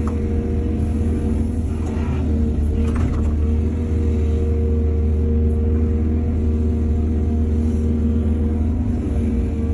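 Excavator's diesel engine running steadily at a constant pitch, with brief faint rattles about two and three seconds in.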